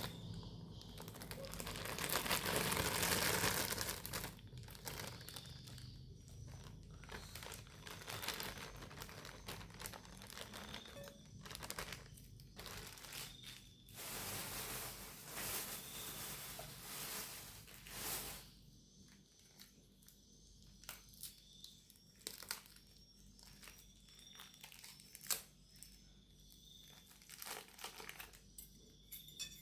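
Food packaging for chicken noodles crinkling and tearing as it is opened by hand. The rustling is loudest a couple of seconds in, then comes as scattered crackles and clicks that grow sparser in the second half.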